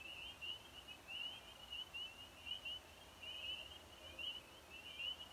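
A faint chorus of spring peepers: many small frogs giving short, high, slightly rising peeps that overlap in a continuous stream.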